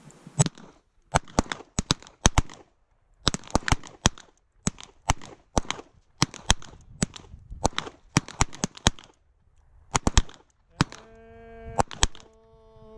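Revolver shots and gunfire from the firing line: a long run of sharp cracks, often two or three a second, some in quick pairs. From about eleven seconds in, a held tone with overtones sounds under the last few shots.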